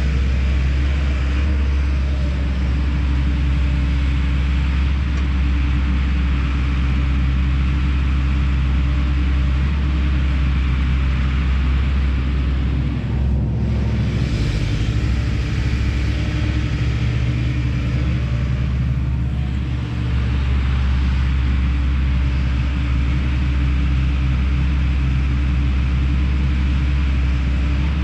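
Kobelco SK210 excavator's diesel engine running steadily at working revs, with brief dips in its note about halfway through and again a few seconds later.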